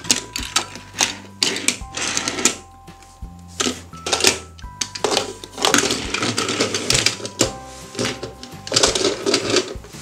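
Plastic toy vehicles and toy playset parts clattering and rattling in a quick, irregular run of clicks and knocks as they are handled on a tabletop, over simple background music.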